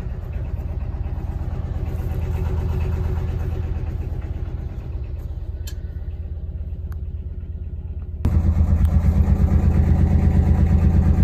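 A narrowboat's old Lister diesel engine idling with a steady, even chug, smooth-running "like a kitten"; it becomes louder about eight seconds in.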